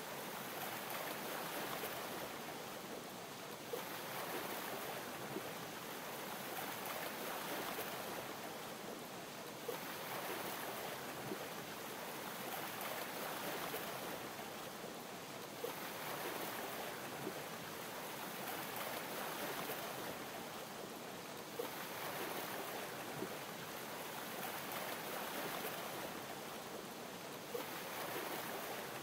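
Ocean waves lapping in slow, even swells about every six seconds, with a small sharp pop once in each cycle.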